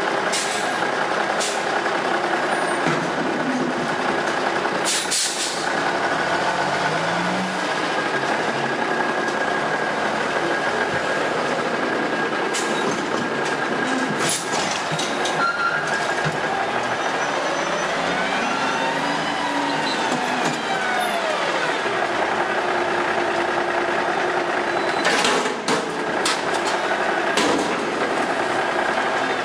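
1985 White front-loader garbage truck's diesel engine running as the truck pulls away and manoeuvres, its pitch rising and then falling about two-thirds of the way through. There are a few sharp clanks along the way.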